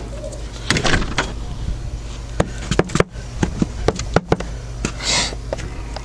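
A house door clatters shut, then scattered crunching footsteps on icy snow, with one longer crunch about five seconds in.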